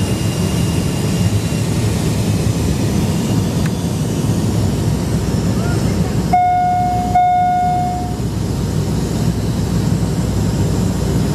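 Steady low rumble of a jet airliner's cabin during descent, with two chime notes of the same pitch a little under a second apart just past the middle, the second one ringing on for about a second.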